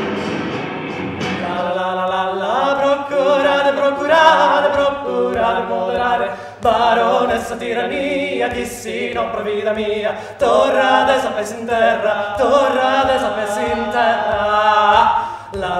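Two men's voices singing together unaccompanied, coming in about a second and a half in.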